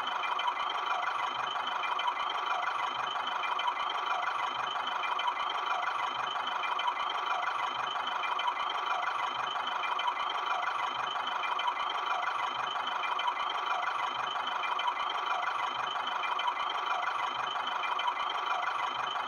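Small electric motor of a homemade toy tractor running steadily with a whine as the tractor drives along.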